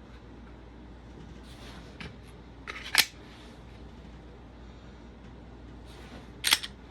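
Sharp metallic clicks from a Glock 43X compact pistol being handled: one loud click about three seconds in and another about three and a half seconds later, with a few fainter ticks around them.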